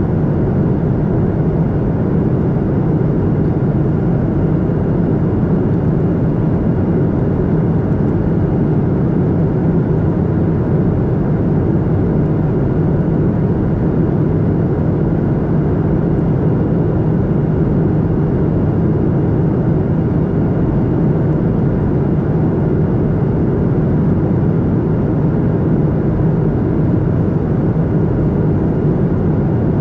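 Steady cabin roar inside a Boeing 737-800 in flight, heard over the wing: the drone of its CFM56-7B turbofan engines and rushing airflow, with a faint thin high tone held steady above it.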